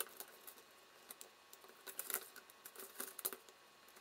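Faint, scattered clicks and rustles of a small circuit board and its wires being handled while they are desoldered with a soldering iron.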